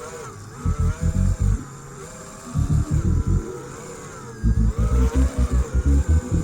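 5-inch FPV quadcopter's T-Motor Velox 2207 brushless motors whining, the pitch rising and falling as the throttle changes. Wind buffets the onboard camera's microphone in loud gusts.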